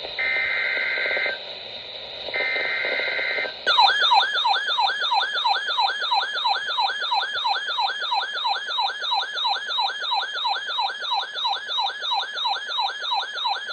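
Emergency Alert System broadcast: two roughly one-second bursts of the screeching two-pitch data header. Then a siren-like attention tone sweeps down in pitch over and over, about two to three times a second, until it cuts off abruptly.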